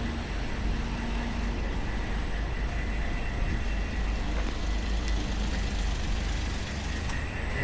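Night street ambience with a steady low rumble of road traffic.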